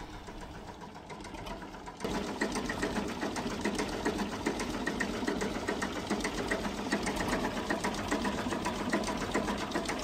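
An engine running steadily with a fast, even clatter, which starts suddenly about two seconds in.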